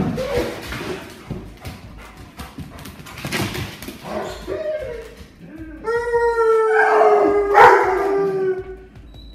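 Dog crying: a sharp yelp at the start and short whines, then a long howl from about six seconds in that lasts some three seconds, sinking slightly in pitch.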